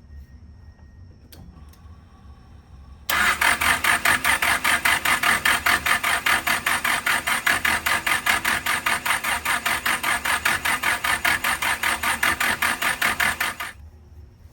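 Mitsubishi Starion's engine cranking on the starter for about ten seconds, a fast, even pulsing that starts about three seconds in and stops near the end. It turns over but never fires, with no engine computer connected.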